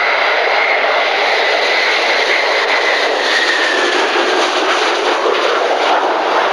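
Concorde's four Rolls-Royce/SNECMA Olympus 593 turbojets roaring as the airliner passes low overhead on its landing approach. A high whine rides over the roar and drops slightly in pitch as the aircraft goes by.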